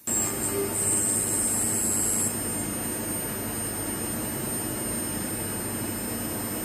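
CNC milling machine running on a hardened tool-steel picking tip: a steady hiss with a thin high whine over it. The sound starts suddenly, is a little louder and brighter for the first two seconds, then settles to an even level.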